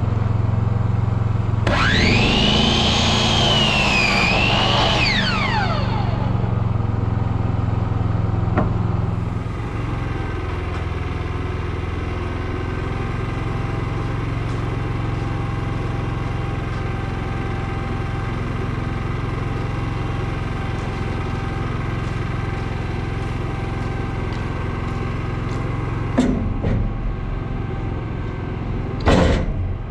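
A Ridgid miter saw spins up about two seconds in. Its high whine dips in pitch as the blade cuts through a tongue-and-groove board, then winds down a few seconds later. Under it an engine runs steadily, and a few knocks come near the end.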